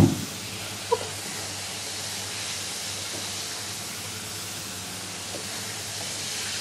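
Hot oil sizzling steadily in a wok as corn-flour-coated baby corn deep-fries to golden brown. A sharp knock at the start and a short clink about a second in, from the slotted spoon against the wok.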